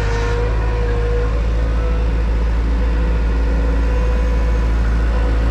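Farm machine engine running steadily at a constant speed, with a deep rumble and an even hum.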